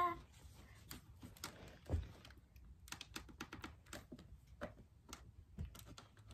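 Irregular light clicks and taps of small plastic toy soldier figures being handled and knocked about, with a couple of soft thuds as pieces are set down.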